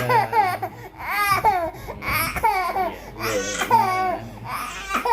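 A baby vocalizing in a steady string of short, high-pitched, rising-and-falling sounds, one every half second or so.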